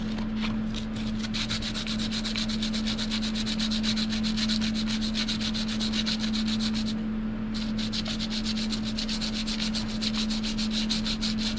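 A thin metal rod is rubbed back and forth on fine aluminium-oxide sandpaper in quick, even scratching strokes, with a short pause about seven seconds in. This roughs up the metal so glue will grip it. A steady low hum runs underneath.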